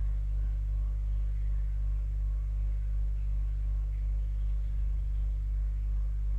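Water pump running with a steady, deep hum that pulses slightly, while water drains through a pipe with faint trickles and gurgles.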